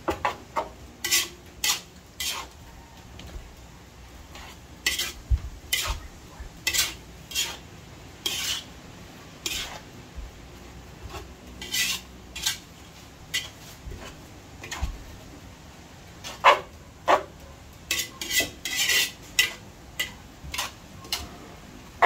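Metal spatula scraping and clattering against a large metal wok as noodles are stir-fried, in irregular strokes about every half second to a second.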